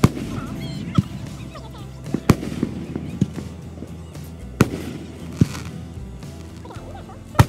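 Aerial firework shells bursting overhead: several sharp bangs at uneven intervals, one every second or so, some coming close together.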